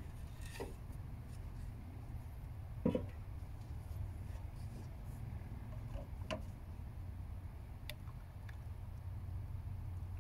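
A few scattered short knocks and clicks over a steady low hum, the loudest knock about three seconds in.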